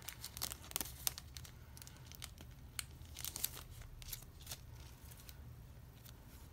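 Faint crinkling and rustling of plastic photocard sleeves and tape as cards are handled, in a string of short, irregular crackles that grow sparser after the first second or so.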